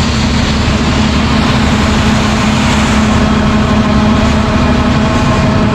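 Heavy farm machinery running steadily at harvest: a loud, even engine drone with a constant low hum.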